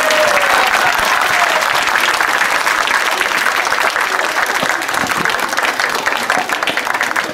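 Crowd applauding steadily with a few cheers near the start, in response to the end of a farewell tribute.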